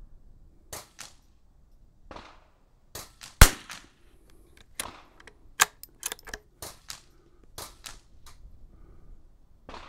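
A single sharp .22 LR rifle shot about three and a half seconds in, with smaller metallic clicks and clacks before and after it as the bolt of the bolt-action rifle is worked. The bolt is sticky with this Lapua Super Long Range ammunition.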